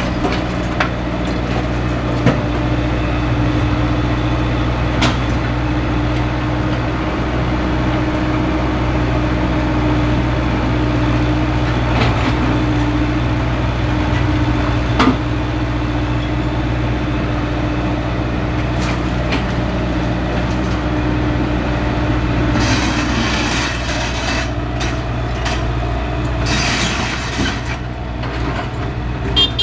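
Diesel excavator engine running steadily under load, with occasional sharp clanks and knocks, and two bursts of rushing, hissing noise in the last third.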